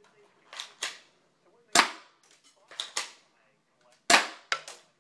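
Airsoft Colt 1911 pistol firing BBs: a string of sharp snapping shots, some in quick pairs, with two louder ones, one in the middle and one about a second before the end.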